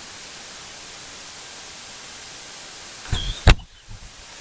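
Steady hiss, then a short knock about three and a half seconds in.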